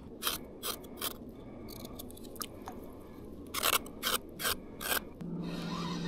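A knife scaling a freshly caught fish: three short scraping strokes near the start, then a quicker run of strokes around the middle. A steady low hum comes in near the end.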